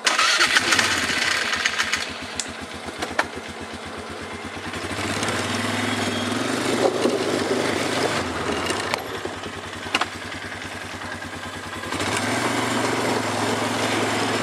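ATV engine running while the quad rides a dirt trail. The engine note swells about five seconds in, eases off, and rises again near the end, with a few sharp knocks along the way.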